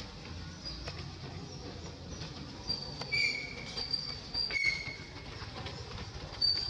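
A series of short, thin, high-pitched squeals from about a third of the way in, some with a lower tone alongside, over a steady low background noise.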